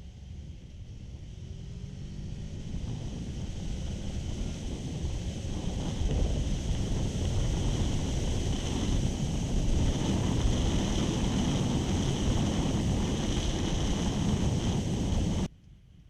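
Wind rushing and buffeting over the microphone of a riding Kawasaki ER6f motorcycle. It builds over the first six seconds as speed rises, holds steady and loud, and cuts off abruptly near the end.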